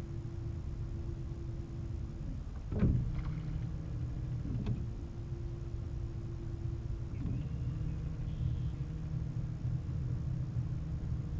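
Electric trolling motor humming steadily on a small jon boat; its pitch drops about two seconds in and rises again past the middle as the speed is changed. A sharp knock comes about three seconds in, and a smaller one a couple of seconds later.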